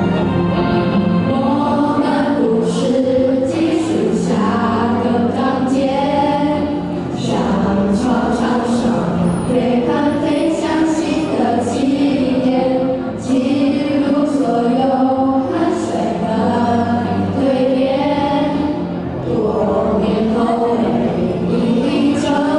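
A group of children singing a song together as a choir, with musical accompaniment.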